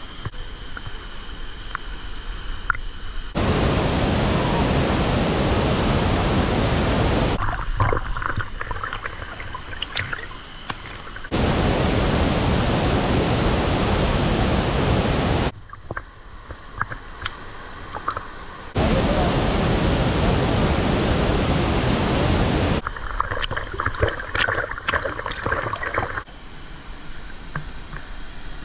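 Waterfall rushing, a steady even hiss of falling water. It cuts abruptly every few seconds between loud, full stretches and quieter ones where small splashes and clicks can be heard.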